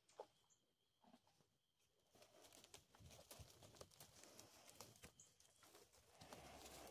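Near silence: faint rustling from about two seconds in, with a few soft clicks.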